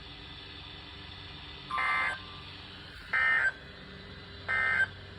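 Three short bursts of EAS (SAME) digital data tones, each about a third of a second long and about a second and a half apart, over faint steady radio background noise: the end-of-message signal that closes a NOAA Weather Radio alert.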